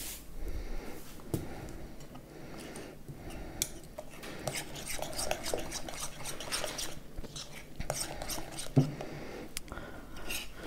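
A utensil stirring a cheese-and-cream mixture in a glass mixing bowl, with quick clinks and scrapes against the glass. A single sharper knock comes near the end.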